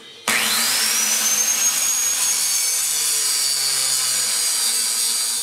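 Electric angle grinder starting about a quarter second in, its whine rising as the cut-off wheel spins up, then running steadily as it cuts into a steel support bar.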